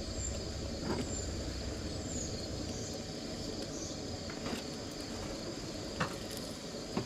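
A steady high chorus of crickets and other insects. Over it come a few sharp clinks of a spatula knocking and scraping on a steel camp griddle, the loudest two near the end.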